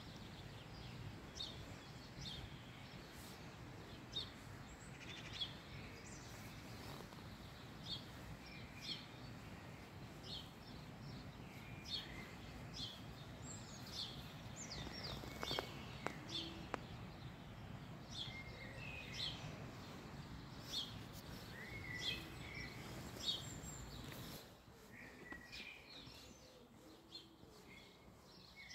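Songbirds chirping and calling repeatedly in short high notes over a steady low background rumble, which fades noticeably about 24 seconds in.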